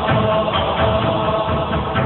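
Background music with a steady beat and sustained, chant-like tones.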